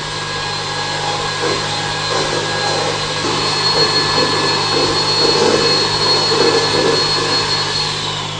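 Handheld electric mixer running at speed, its beaters whirring against a stainless steel bowl under a steady motor whine while whipping a mixture until stiff. Near the end the whine falls in pitch as the mixer slows.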